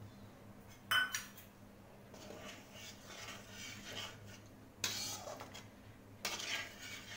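Metal spatula clinking and scraping against a metal kadai while stirring watery egg curry: a sharp clink about a second in, soft scraping after it, and louder scraping clatters near the end.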